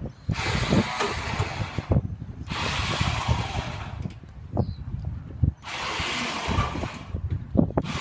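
Small crawler bulldozer climbing steel loading ramps onto a truck bed: engine running and tracks clanking on the ramps, in rough rushes of noise with irregular knocks, broken by short lulls about two seconds in, around four to five seconds in, and near the end.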